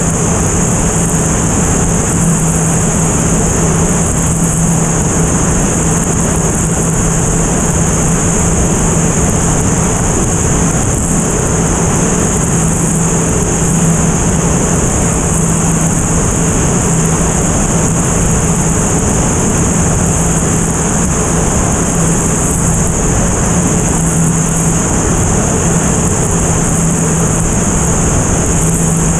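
Single-engine propeller airplane in level flight: a steady, unchanging engine and propeller drone with a steady high whine over it, mixed with wind rushing over the tail-mounted camera.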